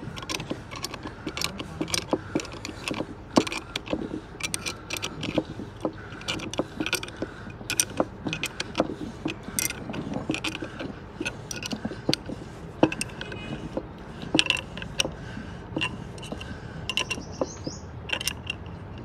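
Spanner tightening the bolts of a bearing separator clamped around a wheel hub: a run of irregular metallic clicks and knocks, a few a second, with short ratcheting spells.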